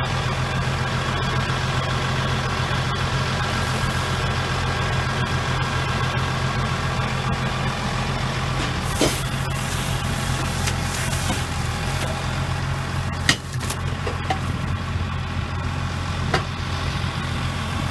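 Tractor engine running steadily while it drives a trailed McHale bale wrapper. A few sharp clicks and knocks from the machine come through, the loudest about 13 seconds in, around when the wrapped silage bale is tipped off the table.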